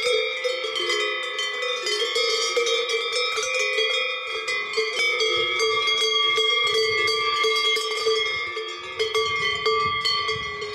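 Several cattle's cowbells clanking and ringing together without pause, bells of different pitch overlapping.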